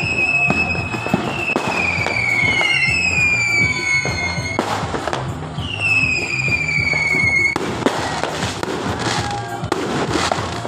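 Fireworks going off: several whistling rockets, each a falling whistle lasting about a second, among repeated bangs and crackling. Music with a steady bass line plays underneath.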